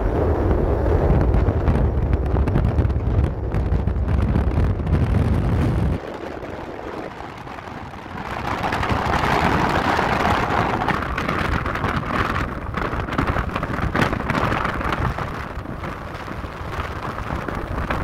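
Wind rumbling on the microphone, stopping abruptly about six seconds in, then a steady hissing noise.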